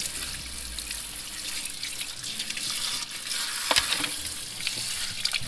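Kitchen tap running into a sink, the stream splashing over a crab as it is rinsed and picked clean by hand. One sharp click sounds about two-thirds of the way through.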